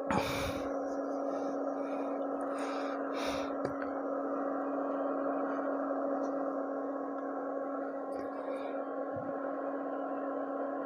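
Small 12 V DC fan of a homemade hot air gun running: a steady whirring hum with a rush of air. There is a knock just after the start, and the sound cuts off suddenly at the end.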